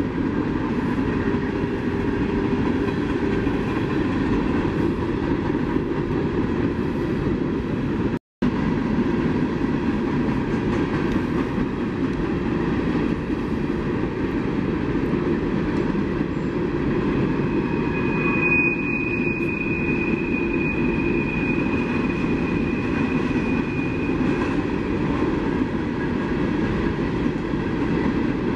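CSX coal train rolling past, its cars rumbling steadily over the rails. A steady high wheel squeal rings out for about six seconds beginning around eighteen seconds in, and the sound cuts out for a split second about eight seconds in.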